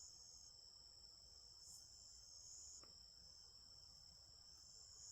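Faint, steady chorus of crickets or other insects, several high-pitched trills holding on without a break.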